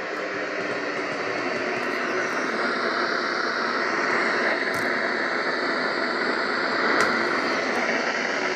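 Weather radio receiver hissing with steady static, the NOAA Weather Radio signal lost in mid-broadcast, with a couple of faint clicks.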